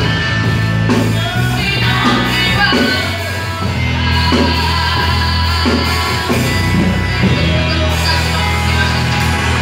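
A girl singing a song into a microphone through a PA system, over electronic keyboard accompaniment with steady, sustained bass notes.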